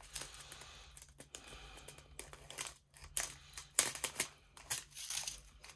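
Clear plastic bags of diamond-painting drill packets crinkling and rustling as they are handled, with irregular sharp crackles. A faint steady low hum sits underneath.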